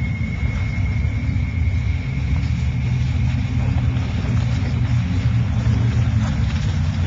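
Mercedes-Benz saloon with a small trailer in tow driving slowly on wet, muddy ground: a steady low rumble, mixed with wind buffeting the microphone.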